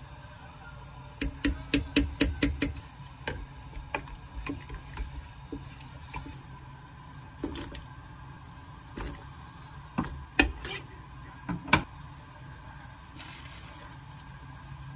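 A quick run of about eight sharp taps on a cooking pot, then scattered knocks and small splashes as chopped vegetables and seasoning paste go into a pot of broth.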